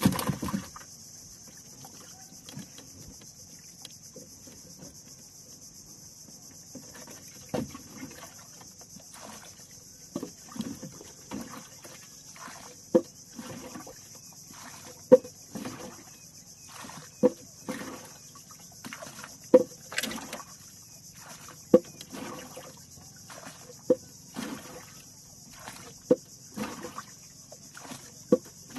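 Paddle strokes on a small outrigger canoe, about one every two seconds, each a sharp knock of the paddle against the hull with a short splash. A single thump comes at the very start.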